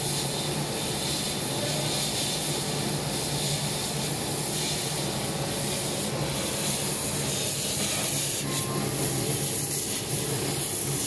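Dual-head fabric laser cutting machine running as it cuts slots in fabric: a steady hiss over a constant low hum.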